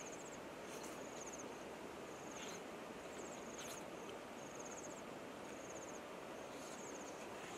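Cricket-type insects chirping in the grass: short, high, buzzy trills repeating about once a second over a steady faint hiss.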